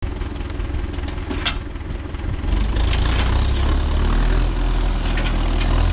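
An engine running steadily with a deep hum, getting louder about two and a half seconds in.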